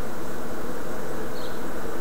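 Steady buzzing hum at an even level, with a faint high chirp about one and a half seconds in.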